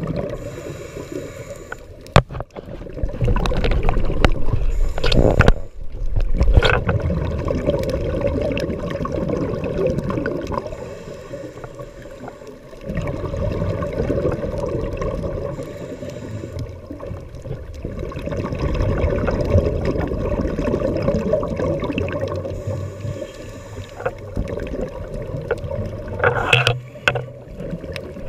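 Muffled underwater sound from a camera housing on a scuba dive: a steady low rush of water that swells every few seconds with the gurgle of a diver's exhaled regulator bubbles, broken by a few sharp clicks.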